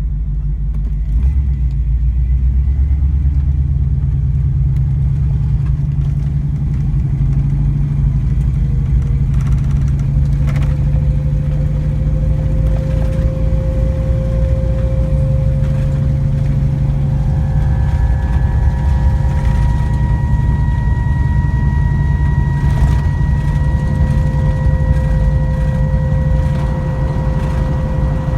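1991 Ford Bronco driving, a steady low rumble with a whine that comes in about ten seconds in, joined by higher whining tones later. This is the unexplained noise the owner hears in every gear and in neutral, in both 2wd and 4wd, but not with the truck on jackstands.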